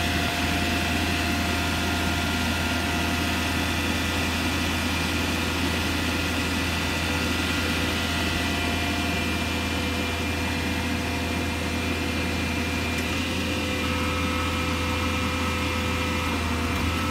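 Duramax V8 turbodiesel of a 2005 Chevrolet C5500 service truck idling steadily, with a steady whine of several tones from the truck's Tiger service crane running over the engine hum. The whine's pitch shifts slightly past the middle.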